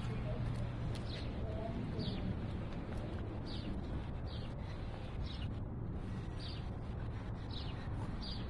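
A bird chirping over and over: short high chirps, each falling slightly, about once a second, over a steady low hum.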